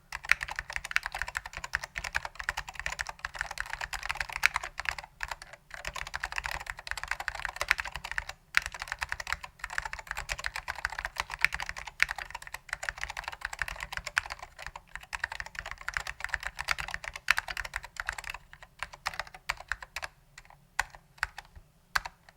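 Fast, continuous typing on an Apple Standard Keyboard M0116 with dry-lubed Alps SKCM Orange switches, many keystrokes a second, thinning out to scattered single keystrokes over the last few seconds.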